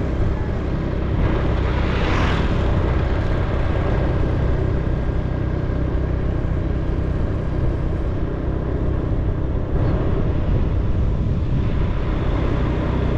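Steady rushing wind and road noise from a vehicle travelling along a paved road, heaviest in the low end, with a faint steady whine and a brief swell about two seconds in.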